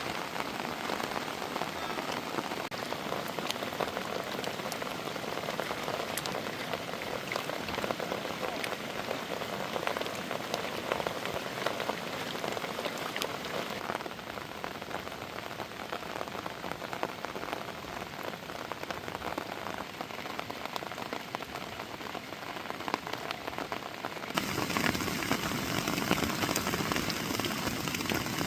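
Heavy rain falling, a steady hiss thick with the sharp ticks of individual drops striking surfaces. It eases a little about halfway through and becomes louder and fuller near the end.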